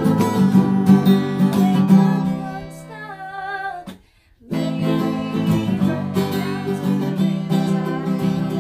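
Acoustic guitar strummed in chords. After a brief break about four seconds in, strummed music starts again with a woman singing, which the picture shows as a ukulele.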